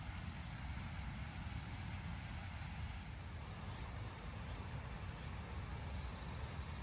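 Insects, such as crickets, singing steady high-pitched trills over a low outdoor rumble. About three seconds in, one trill stops and a somewhat lower one takes over.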